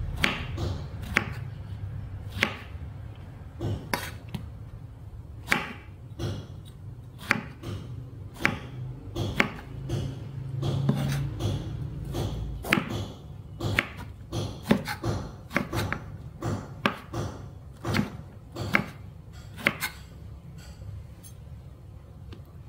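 Kitchen knife cutting peeled luffa on a wooden cutting board: the blade goes through the soft gourd and knocks on the board with each cut, at an uneven pace of about one to three cuts a second, quicker in the middle.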